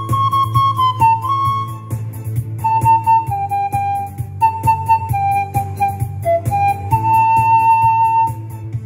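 Curved bamboo pan flute playing a slow melody of breathy held notes that step between pitches, with one long note near the end, over a backing track with a steady beat.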